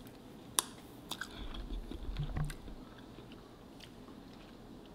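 A person chewing a mouthful of loaded tortilla-chip nachos, with a sharp click about half a second in and a stretch of louder, irregular chewing in the middle.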